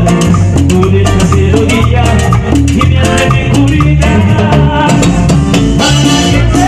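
Live Latin tropical dance band playing: a pulsing bass line under a keyboard melody, with timbales and shaker-type percussion striking steadily.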